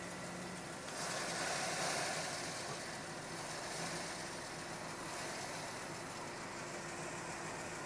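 Steady car engine hum and road noise heard from inside a car creeping forward in traffic. A broad rush of noise swells about a second in and fades by about three seconds.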